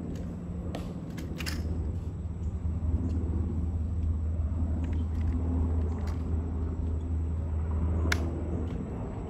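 A low, steady rumble, with a few sharp clicks and taps as a sentinel's M14 rifle is handled during inspection, the sharpest click about eight seconds in.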